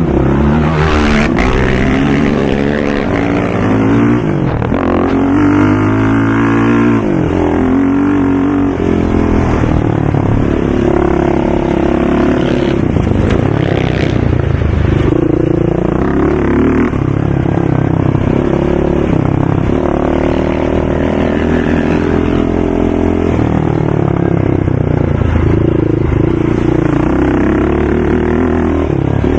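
ATV engines revving on a dirt track, the engine pitch rising and falling again and again with throttle and gear changes.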